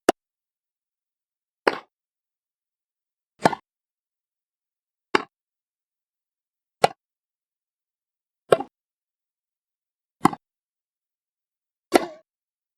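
Tennis ball impacts: eight single, sharp pocks, one about every 1.7 seconds, with silence between.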